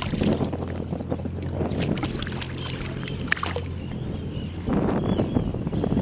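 Small boat's outboard motor idling with a steady low hum, with water splashing at the surface near the start as a fish thrashes beside the boat. About four and a half seconds in, the hum drops out and wind noise on the microphone takes over.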